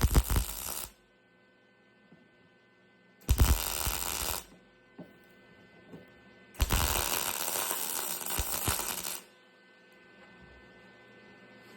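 Electric welding arc crackling in three bursts as a sheet-steel patch panel over a truck's cowl vent is tack-welded: a short burst ending about a second in, a second one a few seconds later, and a longer one of about two and a half seconds. A steady low hum runs between the bursts.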